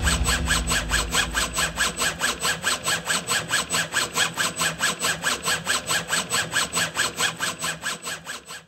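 A rhythmic pulsing sound effect, about five even beats a second, that fades away and stops just before the end.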